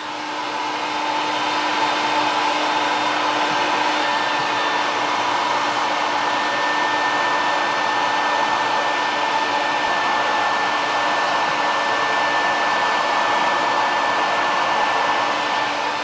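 Small vacuum cleaner running steadily with a high whine, its corrugated hose sucking dust out of a bathroom exhaust fan's motor housing.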